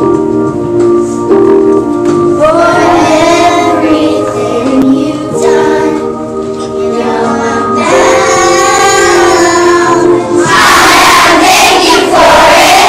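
A group of young children singing a song together over steady instrumental accompaniment. About two-thirds of the way through, the song gives way to a loud burst of crowd noise.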